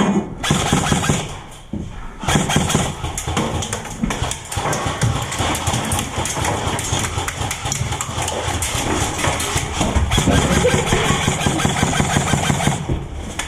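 Electric airsoft guns firing long full-auto bursts: a rapid, continuous rattle of shots with brief breaks near the start. The firing stops shortly before the end.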